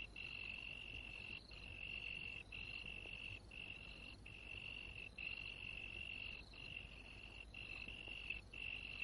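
Faint night chorus of crickets: a steady high trill broken by short gaps about once a second.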